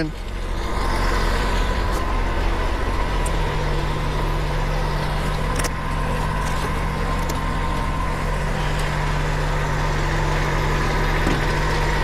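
Kubota compact tractor's diesel engine running steadily, with a low steady hum joining in about three seconds in.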